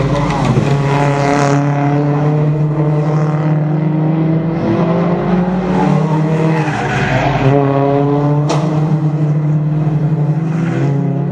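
Toyota Corolla Altis race cars' engines running hard past a corner, their pitch rising and falling as the cars come by, with one sharp click about eight and a half seconds in.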